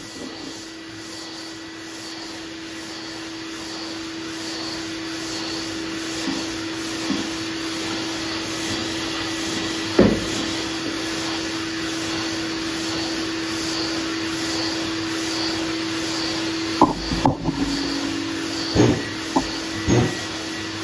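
Shop vacuum running steadily with a hum and hiss, pulling dust through a hose-connected long sanding board as it is pushed in strokes over primed sheet metal, the sandpaper rasping. Several sharp knocks, one about halfway and a cluster near the end.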